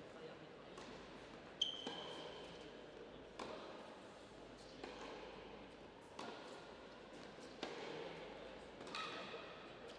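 Tennis ball bouncing on an indoor hard court in a few faint, sharp knocks roughly every second and a half, each echoing in the large hall. The loudest comes about one and a half seconds in, with a brief high squeak.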